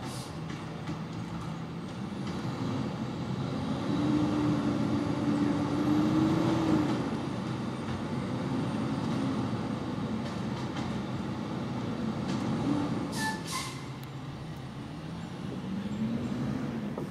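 Waste Management garbage truck's diesel engine running at the curb. It revs up and holds for a few seconds, then settles and revs again near the end, as when the truck works its hydraulics. About two-thirds of the way through there are two short hisses of air.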